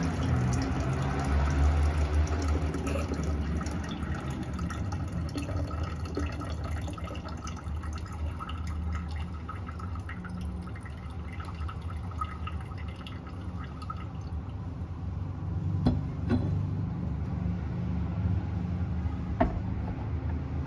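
Liquid trickling and dripping from an upturned glass tea kettle into a glass carafe in a slow, thin pour. A few light clicks come near the end, then a sharper knock.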